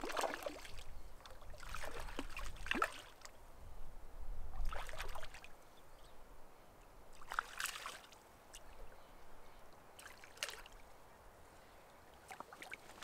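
Hooked trout splashing at the water's surface while being played on the line. The splashes come in short bursts, about six times, with quieter gaps between them.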